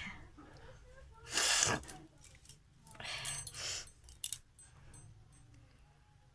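A person's forceful breathy bursts of air through the nose, the kind heard in sneezing and nose blowing. A loud one comes about a second and a half in, and a weaker, longer one follows a second and a half later. A short sharp click comes just after.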